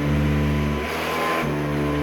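Vintage Hoover upright vacuum cleaner running: a steady motor and fan hum with a high whine, its tone dropping abruptly about a second in and coming back half a second later.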